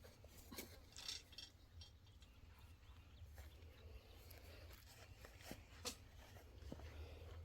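Near silence, with a few faint, scattered clicks and taps at irregular intervals over a low, steady background hum.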